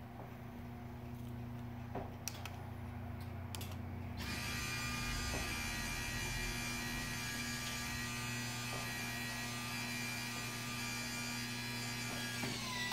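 Electric motors of a motorized projection screen rolling up and motorized drapes opening. A steady motor hum runs throughout, and about four seconds in a higher motor whine with many tones joins as the drapes draw apart. The whine drops in pitch and stops near the end.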